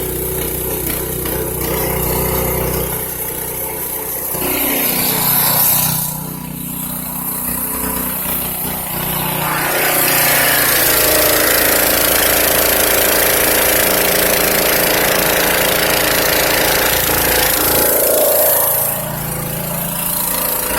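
Engine-driven hydro jetter, a high-pressure water jetting machine, running steadily while it blasts a grease-clogged drain line. It gets louder from about ten seconds in and eases back near the end.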